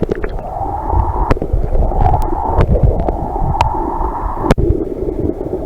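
Creek water gurgling and rumbling as heard with the microphone plunged underwater, muffled and loud, with a few sharp clicks or knocks.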